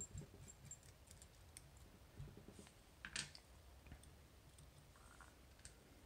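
Faint, scattered small metallic clicks and ticks as a steel tool works the retaining clip off a Miwa EC magnetic lock cylinder, with a sharper click about three seconds in.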